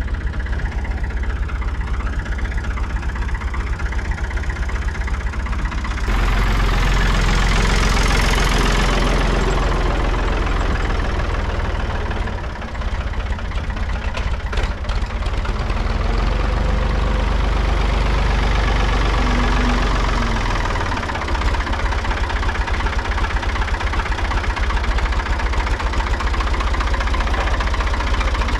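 Ford farm tractor's engine running, with a knocking idle, picking up revs about six seconds in and again for several seconds past the middle before settling back to idle, as it works the forks lifting a crate of firewood.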